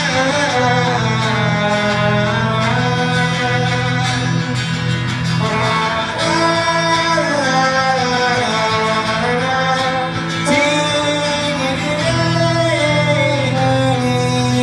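Live band performance: a man singing over strummed acoustic guitar, heard from within the audience in a concert hall.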